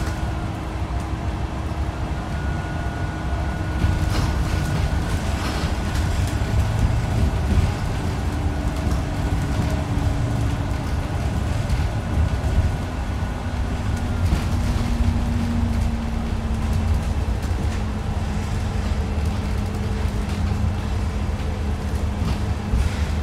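Bus on the move, heard from inside: a steady engine and road rumble with a faint whine that slowly shifts in pitch and a few light knocks and rattles.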